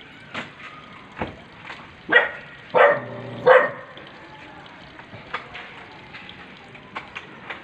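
A dog barks three times in quick succession about two seconds in. A few short sharp clicks come before and after the barks.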